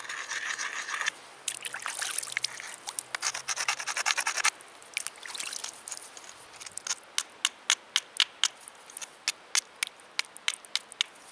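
A hammer stone scraping and grinding along the edge of a slate blank, then tapping it in a quick run of sharp clicks, about three a second. The edge is being rounded into a disc for a friction turkey call.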